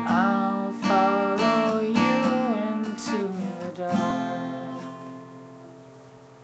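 Acoustic guitar strummed, then a last chord struck about four seconds in and left ringing, fading away: the close of the song.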